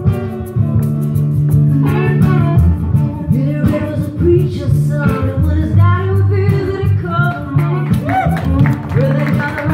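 Live acoustic soul performance: a woman singing lead at a microphone over two guitars, one of them acoustic, picked and strummed.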